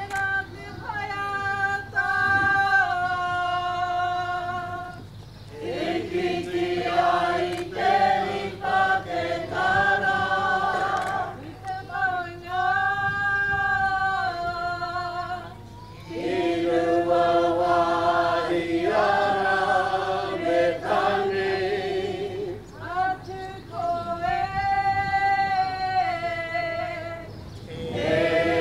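A choir of men's and women's voices singing unaccompanied, in held phrases of about five seconds with short pauses between them.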